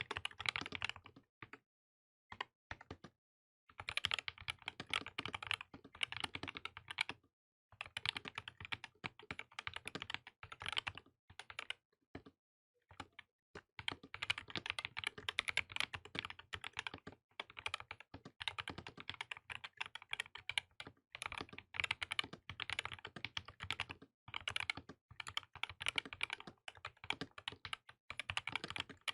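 Typing on a Tezarre TK63 Pro 60% mechanical keyboard with Gateron Optical Black switches, as a sound test of the finished build. Quick runs of keystrokes come with brief pauses near the start and about twelve seconds in.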